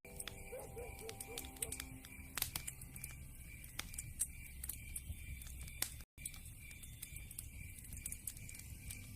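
Wood fire crackling, with frequent sharp pops and snaps over a low steady rumble of the flames. A faint run of music notes sounds in the first two seconds, and the sound cuts out completely for a moment about six seconds in.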